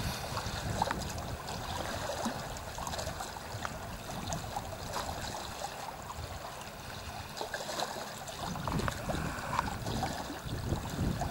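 Small waves lapping and sloshing close by, an uneven trickle of little splashes, with a low rumble swelling up now and then.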